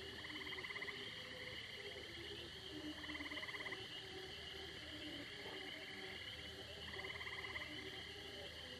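Frogs calling at night: a pulsed trill of about a second repeats three times, roughly every three to four seconds, over a steady high chirring of insects and faint lower calls of a distant chorus.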